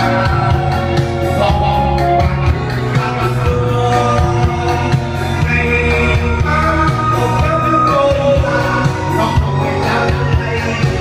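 Singing over a music backing with a steady beat and bass.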